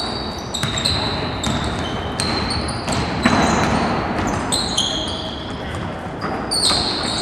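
Basketball game play: many short, high-pitched sneaker squeaks on the court floor and the ball bouncing, with voices in the background.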